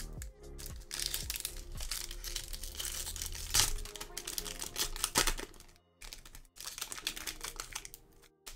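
Crinkling and rustling of a foil booster pack wrapper being handled and pulled open, with sharp clicks, falling away for a moment around the middle and again near the end.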